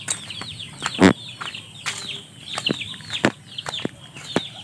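Chickens in a farmyard: a rapid run of high, quick downward-sliding chirps, with one louder cluck about a second in.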